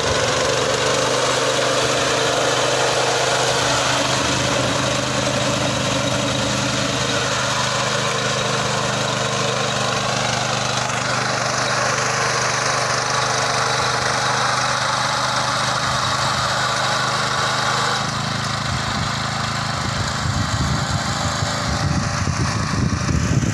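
Walk-behind fodder reaper's small petrol engine running steadily under load as the machine mows tall grass. The sound turns a little quieter and duller about two-thirds of the way through as the reaper moves away.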